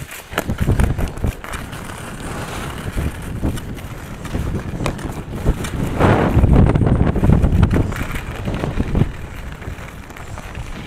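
Wind buffeting an action camera's microphone while skiing downhill, mixed with the hiss and scrape of skis on snow. It grows loudest from about six to eight seconds in.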